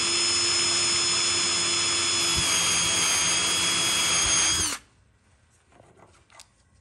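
Electric drill running a step bit through a metal speaker housing, a steady motor whine for about five seconds that stops abruptly, followed by a few faint clicks.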